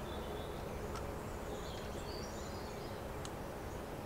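Outdoor background: a steady low rumble with faint, scattered bird chirps and two small clicks, one about a second in and one near the end.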